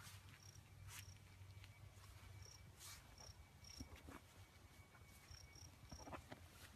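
Faint outdoor ambience: crickets chirping in short, high chirps, often two or three together, spaced irregularly, over a low steady hum. A few soft clicks and rustles come through, most noticeably near the end.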